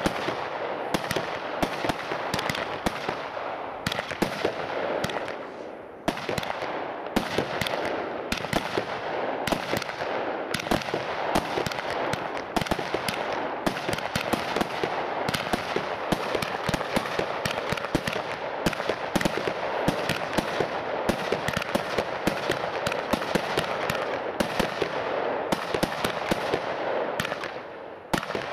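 WECO Power Tec PRO 180.1 compound fireworks cake firing a rapid, unbroken string of shots with sharp pops and crackle over them. The firing thins out about four to six seconds in and again near the end, then picks up hard each time.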